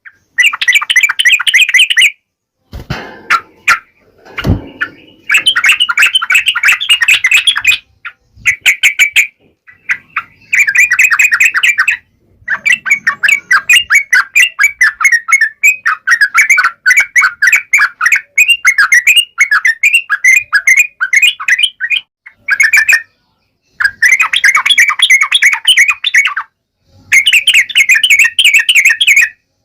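Yellow-vented bulbul (trucukan) singing in its wild-type chattering song: loud bursts of rapid, chirpy notes a few seconds long, separated by short pauses. A couple of low bumps sound a few seconds in.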